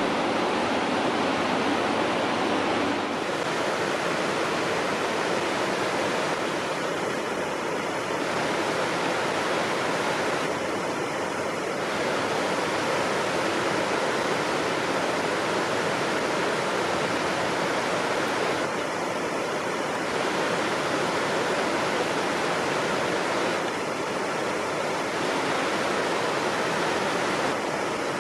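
A creek in flood after heavy rain, its fast, turbulent brown water rushing and churning past concrete bridge piers in a steady rush of noise.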